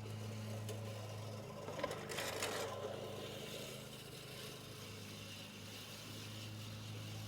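A vehicle engine running steadily with a low hum, and a brief rustle about two seconds in.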